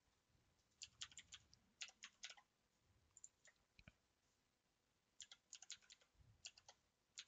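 Faint typing on a computer keyboard: several short runs of keystroke clicks with pauses between them.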